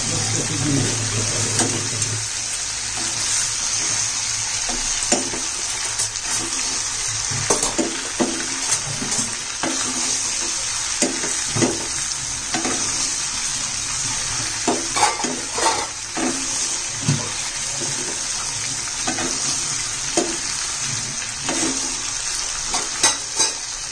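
Pork pieces frying in an aluminium pan with a steady sizzle, while a metal spoon stirs and turns them, scraping and knocking against the pan at irregular intervals.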